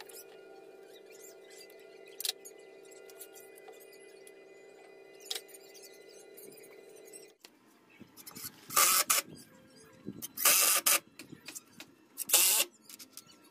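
Cordless drill-driver running in three short bursts about a second and a half apart, driving screws into wood. Before the bursts there is only a steady low hum with a couple of faint clicks.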